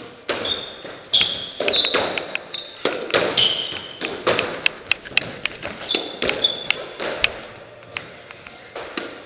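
Squash rally: repeated sharp knocks of the ball off rackets and court walls, with short high squeaks of sneakers on the wooden court floor.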